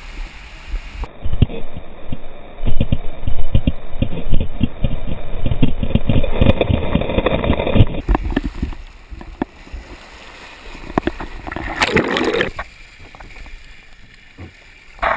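Rushing water and a rider sliding down a water slide, with many irregular knocks and thuds as the body and handheld camera bump along the slide. It is loudest and most muffled in the first half, then thins to a lighter rush of water with one brief loud burst about twelve seconds in.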